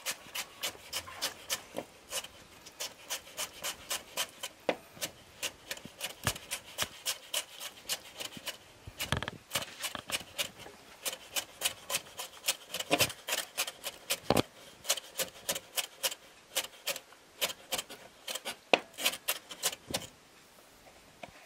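Chef's knife chopping shredded raw potato on a wooden cutting board: quick, even knocks of the blade on the board, about four a second, stopping near the end.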